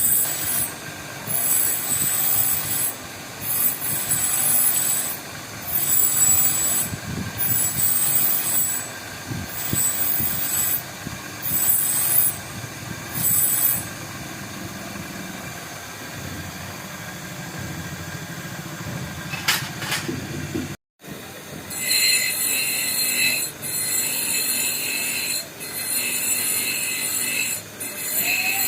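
High-pitched squealing strokes of a hand tool working metal, repeating about once every second and a half; after a brief cut the strokes come quicker and more continuous.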